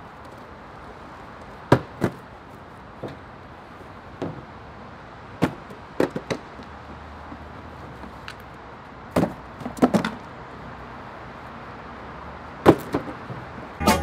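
Cardboard boxes of camping gear being handled and set down in a pickup truck bed: sharp thumps and knocks at irregular intervals, some in quick pairs, over a steady outdoor hum.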